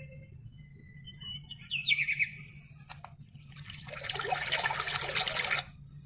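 A portable white noise machine's small speaker playing its recorded nature sounds: a few short bird chirps about a second and a half in, a click, then a burst of water sound from about four seconds until shortly before the end, over a faint steady hum.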